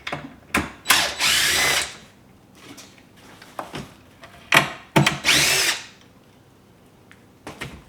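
Cordless power drill or driver running in two short bursts of about a second each, with knocks and clatter of handling around them.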